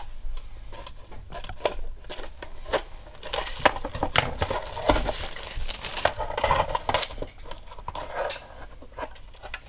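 A hard plastic blister pack being cut with scissors and pried open by hand: a quick, irregular run of snips, clicks and crackles, thickest in the middle.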